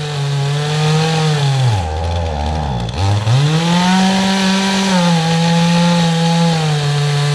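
Chainsaw running under load while cutting into a standing tree during felling. Its engine speed sags hard about two seconds in, then climbs back and holds high.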